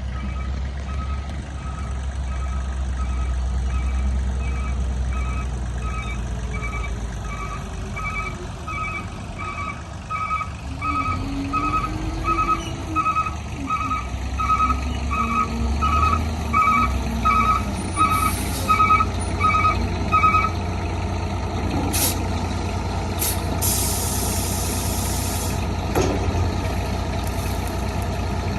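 Heavy truck engine running while its backup alarm beeps steadily, about one and a half beeps a second. The beeping stops about two-thirds of the way through, followed by a short hiss of air and a few sharp clunks.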